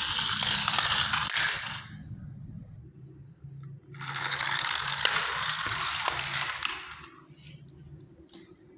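Plastic gears of toy vehicles rattling and whirring as the toys run across the floor, in two bursts of about two and three seconds with a quieter gap between.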